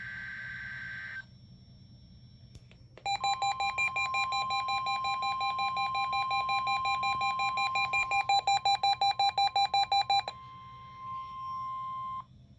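Oregon Scientific WRS-101 weather radio sounding a NOAA Weather Radio test. The raspy tail of a data burst, typical of a SAME header, ends about a second in, then a click. The steady 1050 Hz warning alarm tone follows, with rapid beeping over it at about five beeps a second. The beeping stops about ten seconds in, and the steady tone cuts off about two seconds later.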